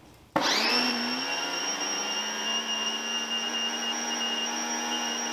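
Portland 1750 electric pressure washer starting up about half a second in, with a quick rising whine as the motor spins up, then running steadily while it sprays through a 2.5 nozzle into a lidded 5-gallon bucket for a flow-rate test.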